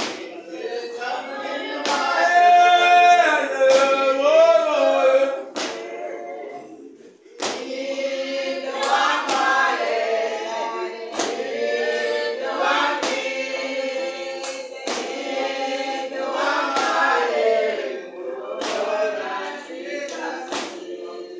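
Church congregation singing a spiritual together, many voices with no instruments carrying the tune, with sharp percussive beats every second or two. The singing fades briefly about seven seconds in, then comes back.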